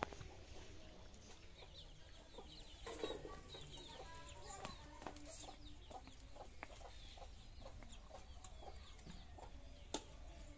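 Chickens clucking faintly, with scattered small chirps and light ticks, and a short metallic clank about ten seconds in as the iron wok is set down on the concrete floor.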